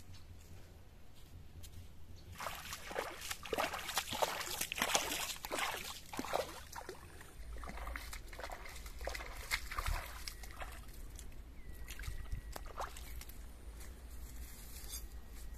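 Bare feet wading and splashing through a shallow stream: a quick run of splashes from about two seconds in to about seven seconds, then fewer, softer sloshes.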